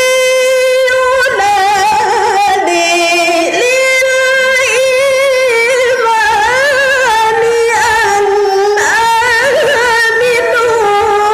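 A woman reciting the Quran in the melodic mujawwad style into a microphone. She holds a long steady note at first, then moves through stepping, wavering ornamental runs without a break.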